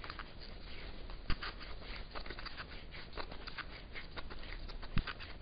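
Shotgun shell being turned and worked in a wooden shell prepper by hand: a steady run of light scraping and small clicks, with a couple of sharper clicks, as the new tool's hole is broken in.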